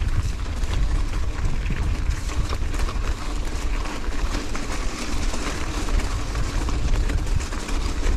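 Wind buffeting the microphone as a steady low rumble, with mountain bike tyres rolling over rocks and gravel, giving a run of small clicks and rattles from the tyres and the bike.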